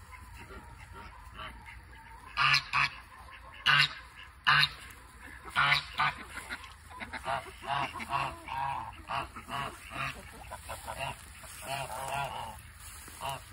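Domestic geese honking: about six loud honks in the first half, then a long run of quieter, quicker calls.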